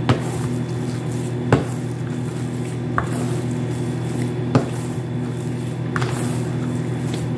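Bread dough being kneaded by hand in a plastic basin: a dull thump as the dough is pushed against the basin about every second and a half, over a steady low hum.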